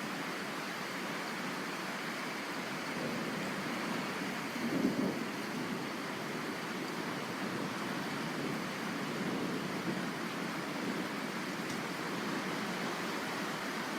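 Steady hiss of heavy rain during a thunderstorm, with a faint low swell about five seconds in.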